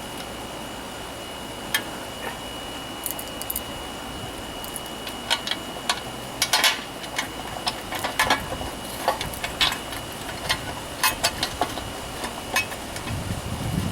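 Irregular light clicks and metallic clinks of small engine parts and hand tools being handled during hands-on reassembly of a lawnmower, coming more often in the second half.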